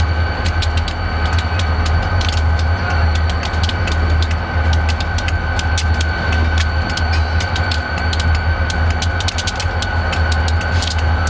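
Diesel freight locomotives running with their engines at a low, pulsing rumble, a steady high whine over it and frequent sharp clicks throughout.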